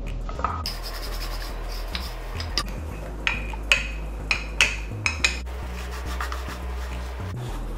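Wooden rolling pin working dough on a wooden board, with a quick run of about seven sharp knocks and clacks between about two and a half and five seconds in, over a steady low hum.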